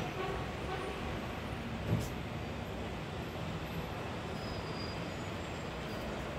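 City street background: a steady rumble of traffic, with a single sharp knock about two seconds in.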